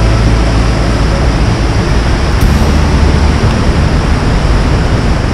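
Whitewater rushing through a granite gorge cascade: a loud, steady roar of falling water with a deep low rumble.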